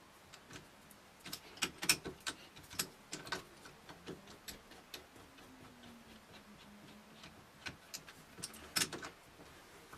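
Irregular light metallic clicks and taps from hand work on a four-jaw lathe chuck, as the jaws are wound out with the chuck key. The clicks come in two clusters, with the sharpest near the start and again near the end.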